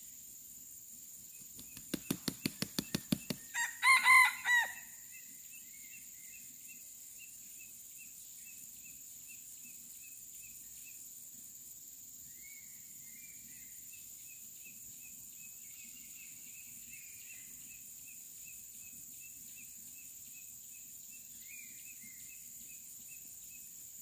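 Red junglefowl rooster beating its wings about ten times in quick succession, then giving one short, clipped crow in four pulses. A faint steady insect chorus of high buzzing and chirps runs under it.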